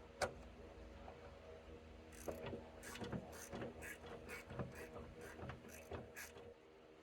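Small hand ratchet clicking in short strokes, about three clicks a second, as the 5 mm bolt holding the exterior door handle is undone inside the door.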